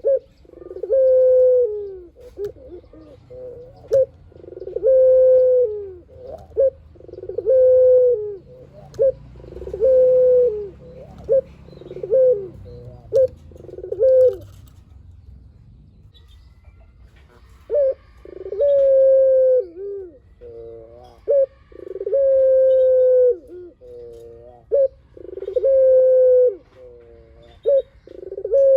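Puter (domestic ringneck dove) cooing over and over: a long drawn-out coo followed by short clipped notes, roughly every two seconds, with a pause of about three seconds midway.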